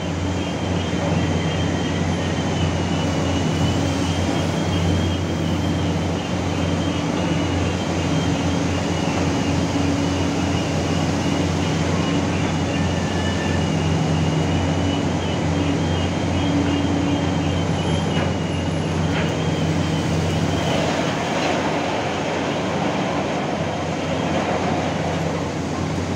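Steady, loud drone of heavy diesel machinery loading coal into a barge: the excavator on the floating crane and a wheel loader, with a thin high whine over the engine hum. The whine stops about twenty seconds in and the sound turns rougher near the end.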